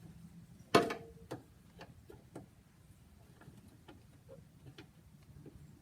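A wrench working a 10 mm nut on a hood latch plate: one sharp metallic clink with a short ring about a second in, then a run of light, irregular ticks as the nut is loosened.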